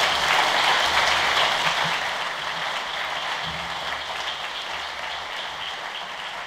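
Audience applauding: dense, steady clapping that slowly dies down.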